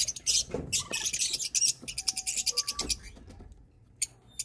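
Lovebirds chirping in fast, high-pitched chatter that thins out and fades about three seconds in.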